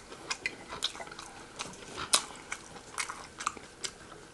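Close-miked eating sounds: chewing and wet mouth clicks at an irregular pace, with a sharper click about two seconds in.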